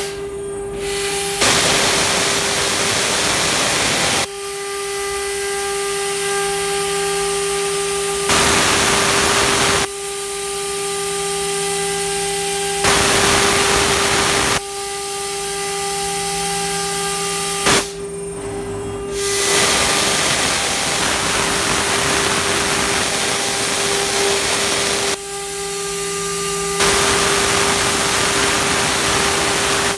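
CNC rotary die-board router spindle running at a steady high whine while its bit cuts into a curved plywood die board. The cutting hiss steps up and drops back every few seconds as the machine works through successive cuts, with a short click about 18 seconds in.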